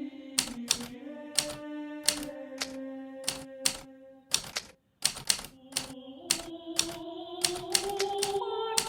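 Hermes Baby portable typewriter being typed on: irregular keystroke clicks, a few a second, with a short pause about halfway through. Soft background music with held notes plays under the typing.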